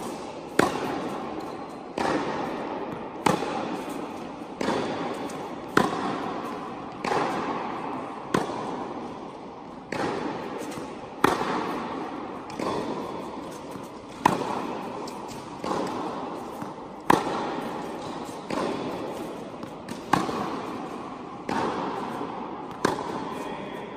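Tennis rally on an indoor hard court: a ball struck by rackets and bouncing, with a sharp pop about every second and a half and the loudest ones about every three seconds. Each hit rings on in the hall's echo.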